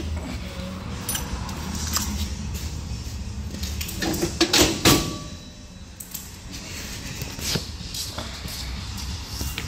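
Metal lug nuts clinking as they are spun off a trailer wheel's studs by hand, then clanks and scrapes as the wheel is pulled off the hub. The loudest clanks come about four to five seconds in.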